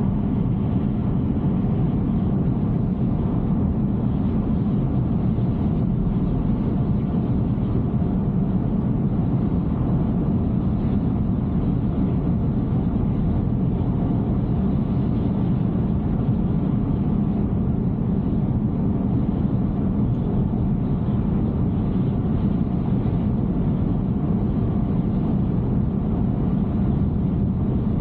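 Steady road and tyre noise of a Tesla Cybertruck cruising at highway speed on a wet road, a constant low rumble heard from inside the cabin, with no engine sound from the electric truck.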